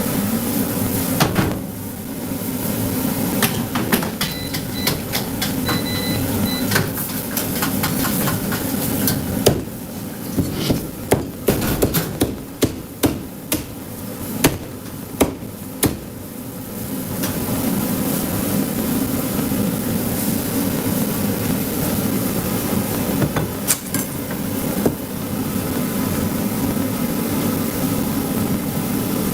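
Cleaver chopping cooked meat on a chopping block: about a dozen sharp chops, roughly two a second, in the middle of the stretch, with scattered lighter knocks around them over a steady background hum.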